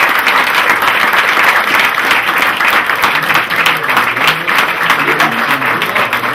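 A small crowd applauding, many hands clapping steadily, with voices coming up underneath from about halfway.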